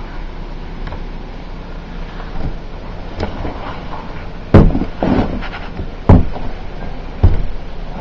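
Footsteps trudging through deep snow: a few heavy thuds, one every second or so, over steady background noise.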